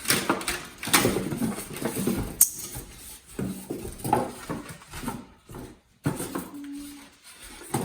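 Irregular knocks, clicks and scrapes as a glass refrigerator door panel is lifted out and handled.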